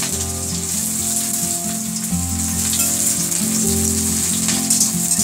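Chopped onions sizzling steadily in hot oil in an iron kadhai, with background music underneath.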